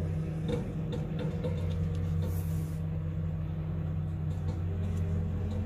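A motor running with a steady low hum, and a brief hiss about two seconds in.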